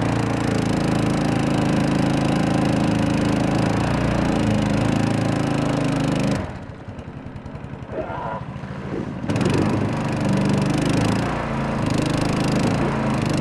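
Mud Buddy longtail mud motor running hard at high throttle, straining with the canoe stuck on a shallow mud flat. About six seconds in the throttle drops and the engine falls to a slow, pulsing idle, then about three seconds later it revs back up to full power.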